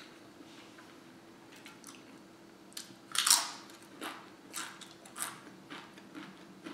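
Close-up chewing of a forkful of chile verde burrito: one louder mouth sound about three seconds in, then softer chewing sounds roughly every half second.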